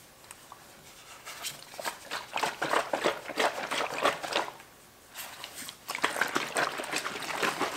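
Soft-bodied water flask being squeezed and shaken hard in a leak test of its screw-on cap: rapid crackling of the flexible plastic and sloshing water, in two bouts with a short pause between.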